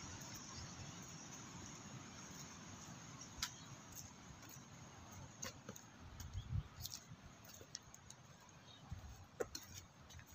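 Quiet outdoor ambience: a faint low rumble with a few scattered, irregular light clicks.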